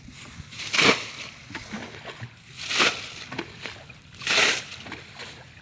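Water being dumped into a field rat's burrow in the ground, splashing and sloshing in three separate pours about every one and a half to two seconds.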